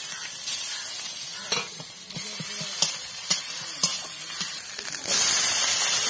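Onions and spices frying in oil in a metal wok, stirred with a metal spatula that clicks and scrapes against the pan about every half second. About five seconds in, chopped vegetables go into the hot oil and a loud, steady sizzle starts.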